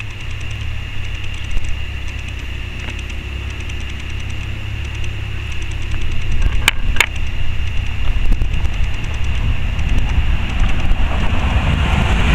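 Wind rumbling on the microphone beside a railway line, with two sharp clicks about seven seconds in. The noise of an approaching train builds up near the end.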